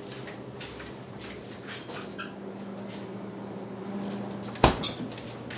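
Footsteps on a kitchen floor, about two a second, then one sharp knock near the end as the refrigerator door is handled, followed by a couple of small clicks.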